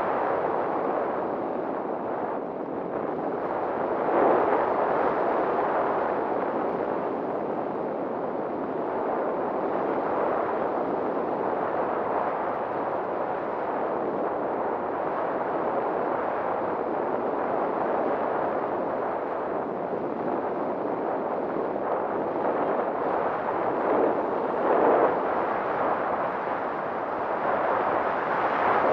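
Wind rushing over the microphone of a camera carried on a small RC plane in flight. It is a steady noise that swells now and then as the plane banks.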